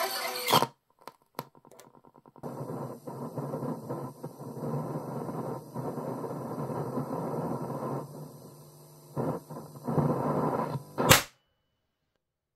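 Music from a cassette player, heard through a portable speaker, breaks off with a click. As the supply voltage is raised the playback comes back distorted and noisy with hiss, and then cuts off with a sharp pop near the end as the overvolted cassette player shorts out and the supply drops into current limit.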